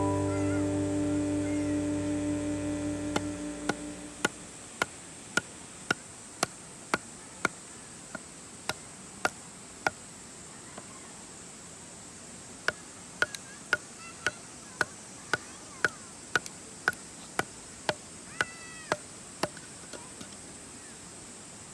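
Wood fire crackling with a run of sharp, separate pops, roughly one or two a second, over a steady high insect drone. Guitar music fades out over the first few seconds.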